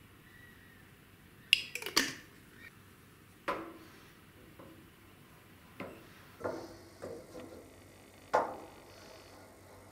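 Glass bottle and wooden spoon knocking against a small stainless steel saucepan while tomato puree is poured in and stirred: a cluster of loud, ringing clinks about two seconds in, then single knocks every second or so.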